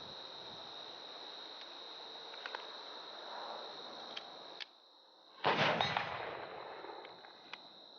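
A quick string of handgun shots about five and a half seconds in, several close together and then fading out, over a steady high chirring of crickets.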